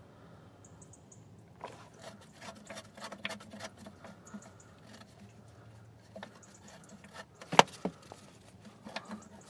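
Scattered, irregular light metal clinks and taps of hand tools working the starter motor's mounting nut, with one sharper knock near the end.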